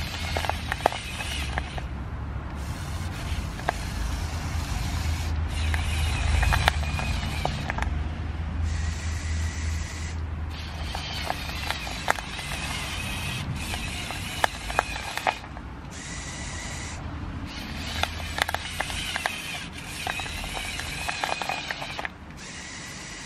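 Electric motors of a remote-controlled Lego Technic Volvo L350F wheel loader whining in spurts, stopping and starting several times, as it drives and works its bucket through snow. Scattered clicks and crunches sit over a low rumble.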